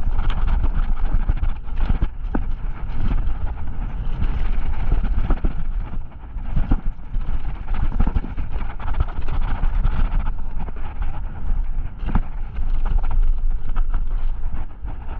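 Mountain bike riding down a dirt singletrack: tyres rolling on dirt, with frequent sharp knocks and rattles from the bike over bumps, and wind rumbling on the microphone.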